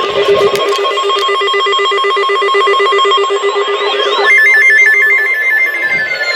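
Several NOAA weather radios sounding their alert alarms at once: layered, pulsing electronic beeps, joined about three and a half seconds in by a warbling chirp and another fast beep, with a falling tone near the end.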